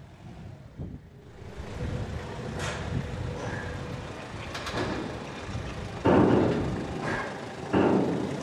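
Komatsu forklift engine running as it drives off with a loaded pallet, a faint steady whine over it. Two loud bangs about six seconds in and again nearly two seconds later.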